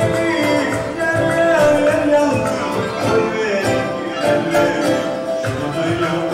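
Live Turkish folk music: a man singing over a plucked kanun, with percussion keeping a steady beat.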